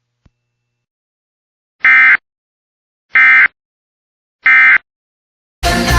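Three short bursts of Emergency Alert System digital data tones, the SAME end-of-message code that closes the alert, each about a third of a second long and a little over a second apart. Music comes in just before the end.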